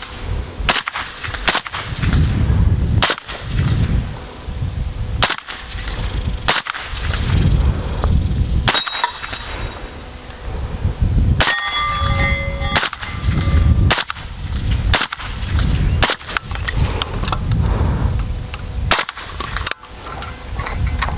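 Suppressed rifle shots from a short-barrelled Ruger Mini-14 fitted with an AWC Raider suppressor, fired one at a time about every one to two seconds, around fifteen shots in all. A low rumble fills the gaps between shots, and a brief ringing tone sounds about halfway through.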